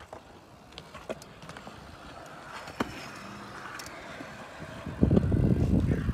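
Stunt scooters on a concrete skatepark: a knock as a rider drops in, a few sharp clicks, then from about five seconds in a loud close rumble of hard wheels rolling over the concrete.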